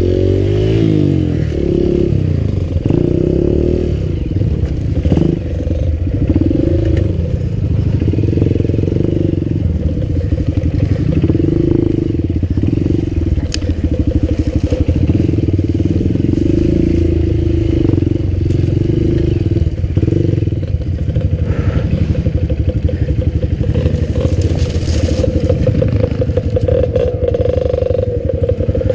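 Enduro dirt bike engine running under a rider, its pitch rising and falling as the throttle is worked, with some clatter mixed in.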